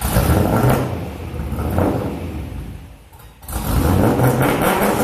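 Holden ute's LS1 5.7-litre V8 revved hard through a straight 2.25-inch exhaust: a sharp blip at the start, another rise a little under two seconds in, the revs dropping away near three seconds, then held high again from about three and a half seconds.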